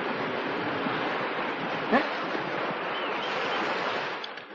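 Heavy rain falling in a steady downpour, with a brief rising sound about two seconds in.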